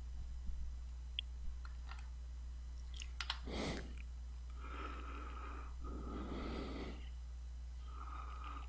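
Soft breathing close to the microphone, three long breaths with a thin whistle in each, over a low steady hum. A few faint clicks come in the first few seconds.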